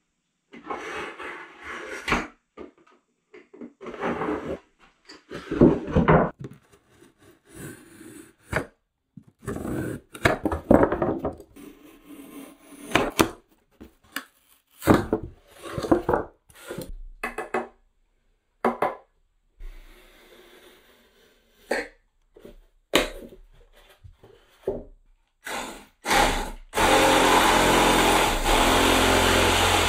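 A foam shower curb being cut and handled: a string of short cutting, scraping and knocking sounds, then a power tool running steadily for about three seconds near the end.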